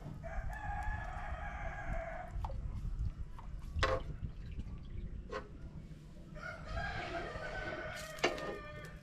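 A rooster crows twice, each crow about two seconds long, with a sharp knock between them.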